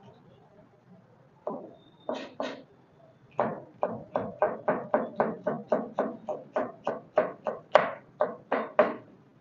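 Kitchen knife chopping a green vegetable on a plastic cutting board: a few separate chops, then a steady run of about four to five chops a second.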